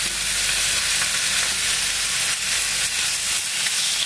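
Thin steaks sizzling steadily on the hot plate of an electric contact grill.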